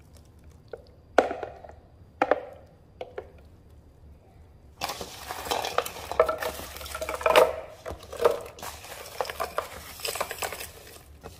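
A spoon scraping thick chili puree out of a plastic blender cup into a metal strainer, with three sharp knocks in the first few seconds. From about five seconds in comes a steady clatter and rustle of fried plantain, onion, prunes, bread, cookies and seeds sliding off a metal colander into the blender cup.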